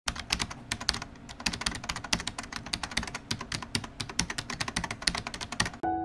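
Computer keyboard typing: rapid, uneven keystroke clicks. A piano melody comes in just before the end.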